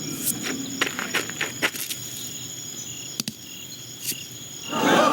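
Cricket chirring ambience with short repeating high pulses, broken by scattered sharp clicks and taps. Near the end a much louder jumble of many overlapping squeaky, chattering sounds comes in suddenly.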